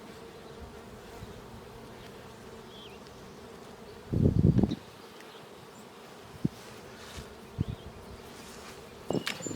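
Honeybees buzzing steadily around an open beehive, with a brief loud rustle about four seconds in and a few small knocks near the end.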